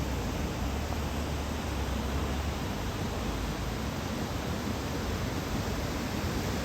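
Steady rush of ocean surf from a typhoon swell, an even noise with a deep low rumble and no distinct events.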